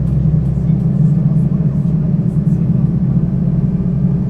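Mercedes-Benz O 530 G Citaro articulated bus's diesel engine and drivetrain running steadily, heard on board while the bus is driving: a strong, even low hum with a few faint clicks.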